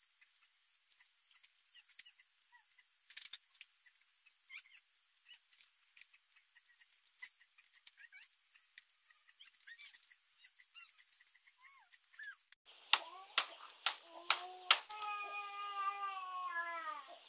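Split bamboo strips ticking faintly as they are woven by hand into a mat, with faint chirping. About two-thirds of the way in come several sharp clacks of bamboo strips, followed by a drawn-out, slightly falling cry lasting about two seconds.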